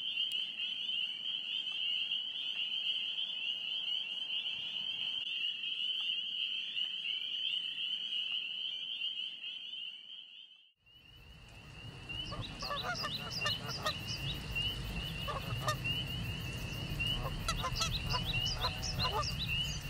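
Outdoor ambience: a steady high-pitched trill throughout, dropping out briefly just before halfway. After the break a low rumble comes in, with a run of short honking calls.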